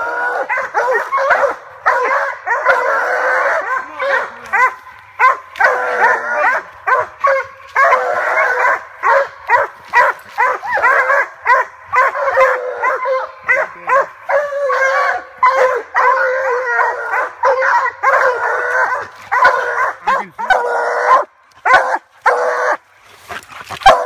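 Treeing Walker coonhounds barking fast and steadily at a tree, with a short lull near the end. This is a tree bark, the sign that the hounds have a raccoon up the tree.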